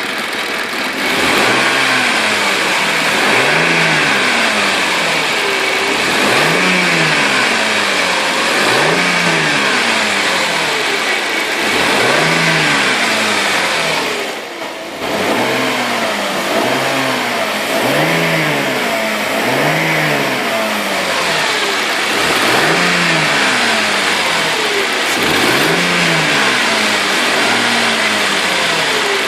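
Mercedes-Benz W210 3.2-litre engine being revved in short blips from idle, the pitch rising and falling every one to two seconds, with a brief drop about halfway through. The owner reports a knock from the engine whose cause is unclear to him.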